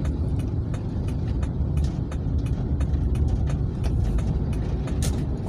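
Car driving in slow city traffic, heard from inside the cabin: a steady low engine and road rumble with faint light ticks every half second or so. A short hiss comes near the end.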